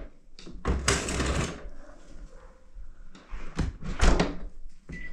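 Knocks and clatters of drain-cleaning gear, a cable drum and a vacuum hose, being carried and handled, with a brief rushing noise about a second in and a short high beep near the end.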